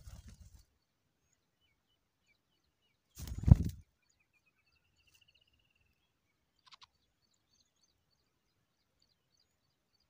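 A short crackling rustle, then a brief loud rustling thump about three and a half seconds in, followed by faint, thin, high peeps and a short chatter from nestlings begging as a parent bird feeds them at the nest.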